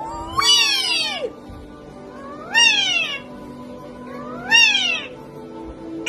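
Parrot calling a long, rising-then-falling "weeee" near the start, followed by two shorter rise-and-fall calls about two seconds apart.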